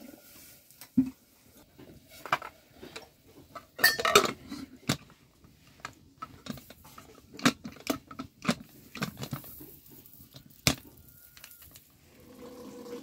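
Metal cookware knocking and clinking as an aluminium pressure cooker and a kettle are handled on a wood-fire hearth: scattered sharp clanks, the loudest about four seconds in.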